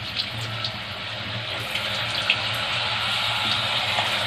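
Potato finger chips deep-frying in hot oil in a kadhai: a steady sizzle that grows a little louder, with a few small pops.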